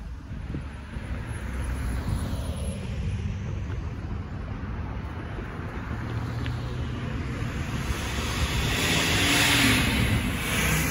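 Road traffic: cars and trucks driving across the railroad crossing, tyre and engine noise. One car passes close near the end, its noise swelling loudly.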